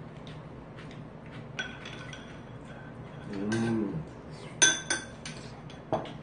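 Metal spoon clinking against a ceramic bowl a few times with a short ringing tone, the loudest a double clink a little past the middle.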